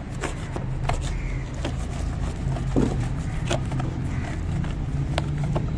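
Light, irregular scraping and ticking as blistered, paint-stripper-softened paint is scraped and flaked off a car body panel, over a steady low machine hum.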